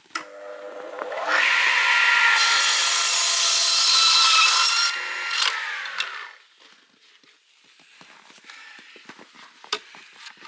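DeWalt mitre saw switched on, its motor whine rising as the blade spins up, then the blade cutting through a wooden board for about three seconds. The motor winds down with a falling whine about six seconds in, followed by a few light knocks as the wood is handled.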